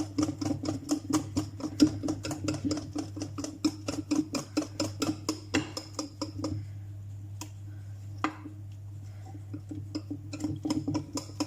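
Cake batter being beaten by hand in a bowl, the utensil knocking against the bowl about five or six times a second. The beating pauses for a few seconds after about six seconds, with a couple of single knocks, then starts again near the end.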